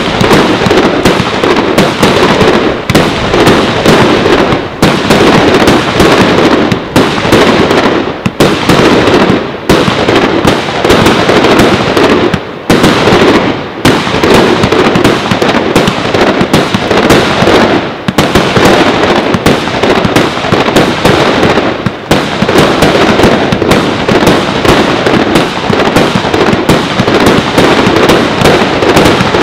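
Fireworks battery firing shot after shot in quick succession: a dense, very loud, unbroken string of bangs and crackling bursts, with only brief lulls every second or two.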